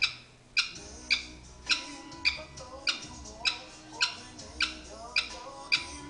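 Music with a steady beat, a short, sharp, high squeak landing on every beat about twice a second.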